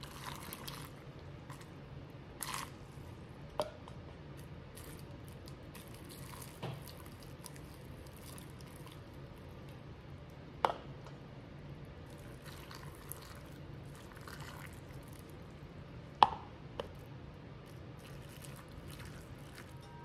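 Hot vinegar brine poured from a stainless steel pot through a plastic canning funnel into glass mason jars of green tomatoes: a faint trickling pour, with a few sharp knocks as the funnel and pot are moved from jar to jar, the loudest about ten and sixteen seconds in.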